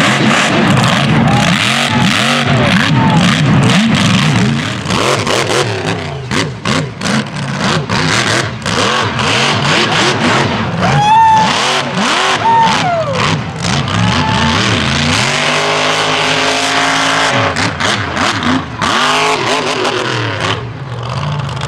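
Mega truck's engine revving hard in repeated rising and falling surges, with sharp bangs and clattering as the truck lands and tumbles. For a few seconds past the middle it holds a steadier note, then revs again.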